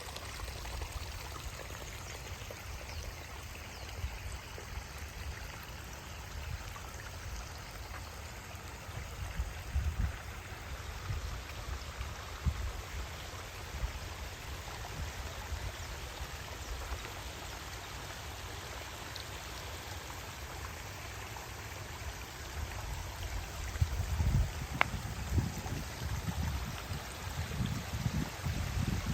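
Small waterfall and stream water flowing and splashing steadily. Low, uneven buffeting rumbles underneath, heavier in the last several seconds.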